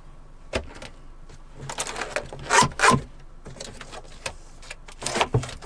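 Cardboard box and packaging being opened and handled: a series of short scrapes and rustles, the loudest two close together near the middle.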